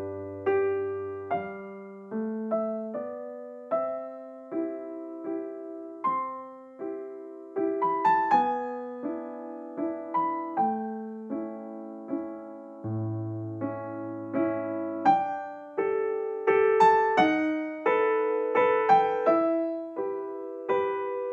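Background piano music: a slow melody of struck notes over low chords, each note ringing and dying away before the next.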